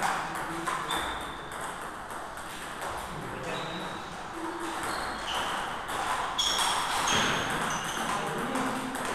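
Table tennis ball striking bats and the table in a rally, a run of short, sharp pings.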